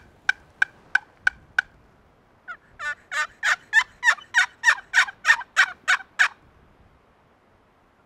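Wooden turkey box call run hard in loud, raspy hen yelps: a short run of sharp notes about three a second, then after a brief pause a longer run of about a dozen louder notes that stops about six seconds in. The calling is meant to make gobblers answer.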